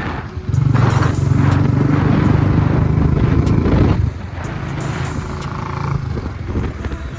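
Road noise from a moving motorcycle: engine running with wind noise, and a louder steady engine drone from about half a second in until about four seconds.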